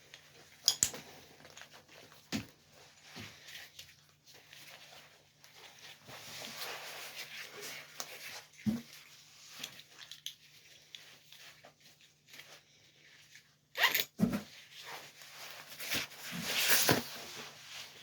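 Nylon harness webbing being pulled through buckles and rustling, with scattered clicks and knocks of its metal fittings. A sharp knock comes about 14 seconds in, and a longer rasping pull of strap near the end.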